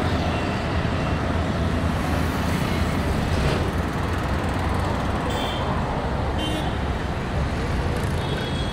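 Heavy road traffic: cars, buses and trucks passing close by in a steady wash of engine and tyre noise. A few short high-pitched tones sound about five and six and a half seconds in, and again near the end.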